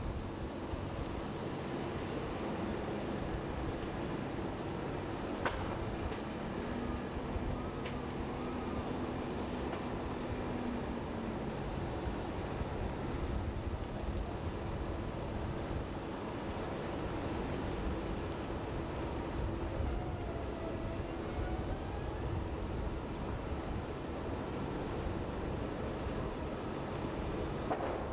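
Steady low roar of a large blaze of burning buses and wooden pallets, mixed with fire engines running, with two sharp pops about five and a half and eight seconds in.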